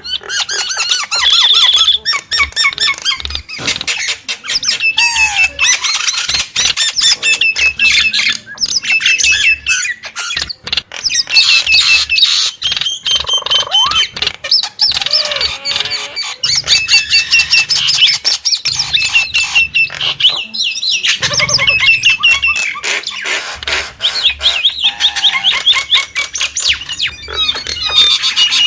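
Nias hill myna calling without pause: loud runs of short whistled notes repeated over and over, mixed with harsh squawks and clicks.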